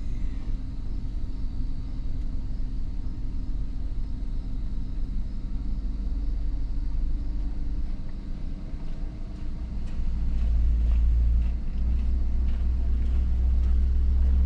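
Chevrolet 4.8-litre V8 idling while a scan tool commands its idle air control valve. The idle changes, dipping briefly, then rising and running louder from about ten seconds in.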